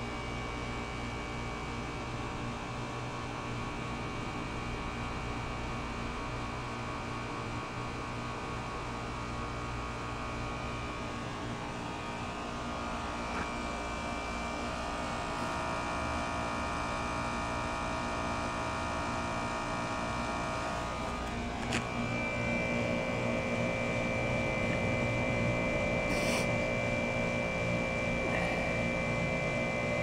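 Heat pump outdoor unit running in heat mode with its outdoor fan switched off by a mild weather switch: the compressor gives a steady hum with several steady tones. The fan is held off to keep head pressure down on a mismatched system. A light click comes about 22 seconds in, after which the hum is a little louder with a stronger higher tone, and another tick follows a few seconds later.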